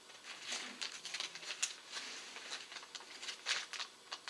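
Plastic bait packaging rustling and crinkling as it is handled, a run of short, irregular crackles.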